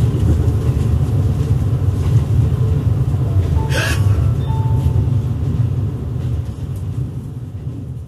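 Interior running noise of a JR Kyushu 787 series limited express train: a steady low rumble, with a brief sharp noise about four seconds in, fading out near the end.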